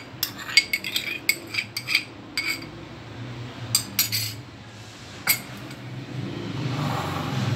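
A metal spoon tapping and scraping against a small bowl in a quick run of clinks as beaten egg is scraped out of it, then a few more clinks a couple of seconds later. Near the end a low rumble swells up.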